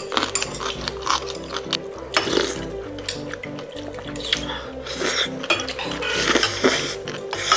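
Background music with a steady, repeating melody. Over it, a spoon and chopsticks click and clink against dishes, and broth is sipped from a spoon.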